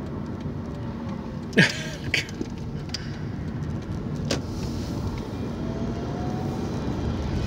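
Car driving slowly through town, heard from inside the cabin: a steady engine and road rumble. A sharp knock about a second and a half in and a couple of softer clicks, with a faint rising whine over the last two seconds.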